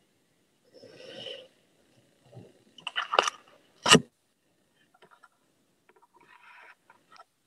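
Sheet of paper handled and shifted close to the microphone: scattered rustles and crinkles, with one sharp knock about four seconds in.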